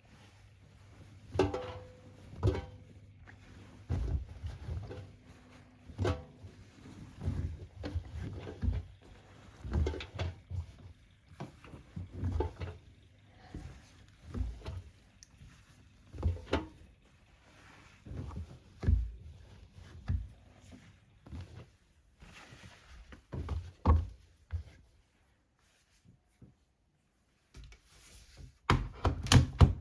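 Irregular knocks and thuds from a Hoover Six Sportswear AI130 washing machine, coming every second or two over a faint low hum, with a short pause near the end.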